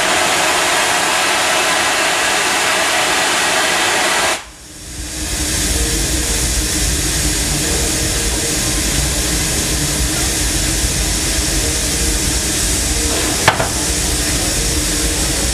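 Steam locomotive standing with steam hissing steadily from around its cylinder, plus a faint steady hum under it. The hiss drops away sharply about four seconds in and builds back up within a second or so.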